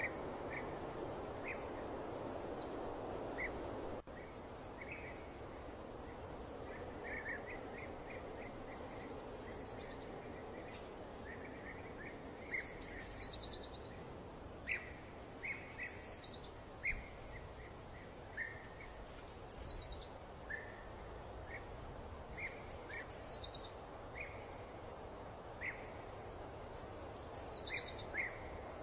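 Birds singing over a soft, steady background noise. One bird repeats a short, high, falling song phrase every three to four seconds, with scattered short chirps between. The background noise drops suddenly about four seconds in.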